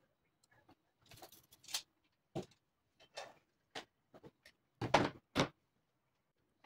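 Half-inch PVC pipes being handled on a wooden tabletop: scattered light clicks and scrapes, then two knocks about half a second apart, about five seconds in, as pipes are set down on the wood.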